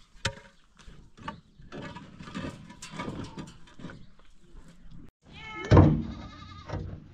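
An animal bleats once, loudly and for about a second, near the end, after a few seconds of quieter irregular noise.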